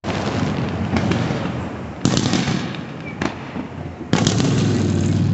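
Aerial fireworks shells bursting overhead: a run of booms, the three loudest about two seconds apart, with smaller bangs between them and rumble carrying on after each.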